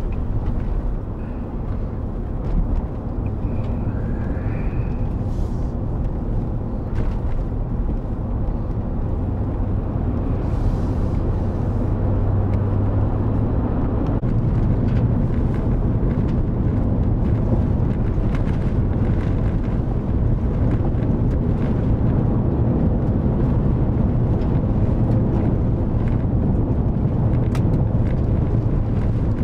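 Chevrolet Suburban driving on a rough gravel road, heard from inside the cab: a steady low rumble of engine and tyre noise, with scattered clicks.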